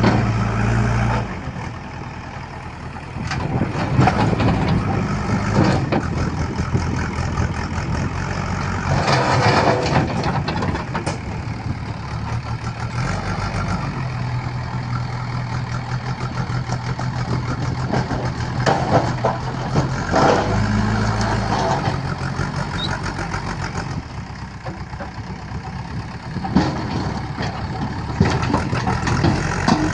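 Diesel engine of a heavy machine running steadily at a low idle-like pace, with occasional knocks and clanks.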